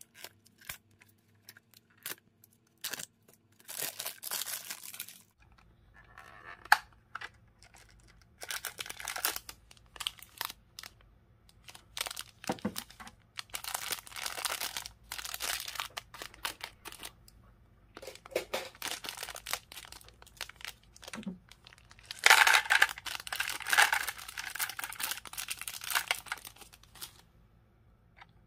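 Clear plastic bag crinkling and tearing in the hands in several bursts, the loudest near the end, with sharp clicks and taps from the hard plastic toy case being handled between them.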